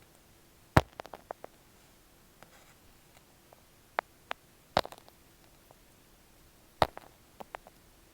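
Close-up ASMR taps and clicks on an earphone microphone: three sharp strikes, about a second, five seconds and seven seconds in, each followed by a few lighter clicks, with a couple of single clicks in between.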